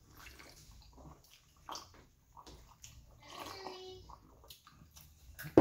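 Swallowing and gulping sounds as a man drinks from a mug, with faint slurps and sloshing. A sudden louder sound comes at the very end.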